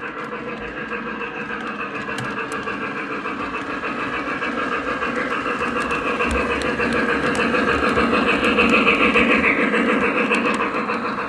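A model 2-8-2 Mikado steam locomotive pulling loaded coal hopper cars, running along the track with a fast, even clatter. It grows louder as the train comes by, is loudest about nine seconds in, then eases slightly.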